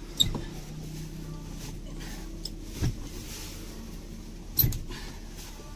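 A van's bench-seat section being wrenched loose from its metal mounting frame: three separate knocks as it is worked, over a steady low hum.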